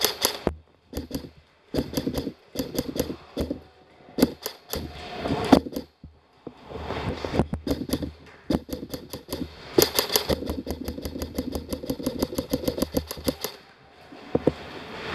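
Airsoft guns firing: rapid, sharp clicks in irregular bursts, thickest in a long stretch from about halfway through to near the end. A faint steady hum runs underneath.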